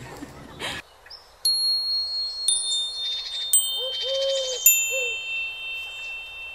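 Four bright metallic chime strikes about a second apart, each ringing on in a high tone, each pitched lower than the last, making a falling sequence. A few soft, lower tones sound beneath them near the middle.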